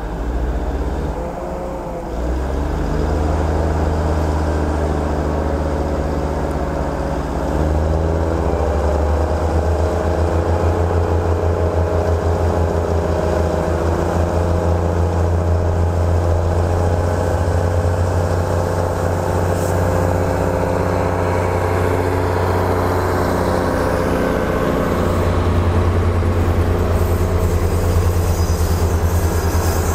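Diesel engines of a State Railway of Thailand diesel railcar set running under power as it pulls away from the platform. The engine note climbs in pitch over the first several seconds, then settles into a steady drone.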